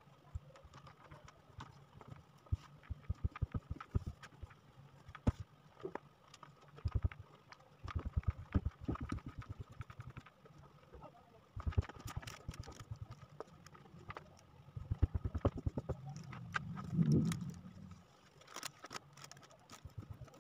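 Hand and knuckles rubbing and pressing adhesive wood-grain wallpaper onto an old wooden cabinet, in several runs of quick soft knocks and scuffs over a low steady hum. There is a short low swell of sound near the end.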